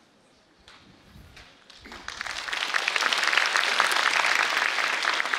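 Audience applause, starting about two seconds in and swelling quickly into steady clapping.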